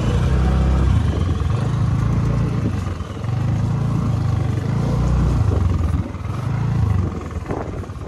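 Motorcycle engine running under load, the throttle opening and easing every second or two.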